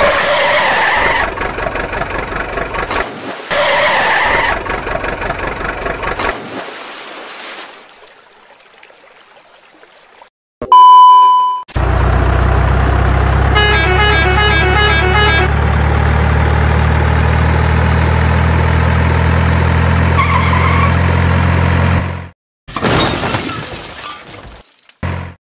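Truck engine noise, in several pieces: a pulsing engine sound for the first six seconds, a single sharp beep about eleven seconds in, then a steady low engine drone for about ten seconds that cuts off, followed by short noisy bursts near the end.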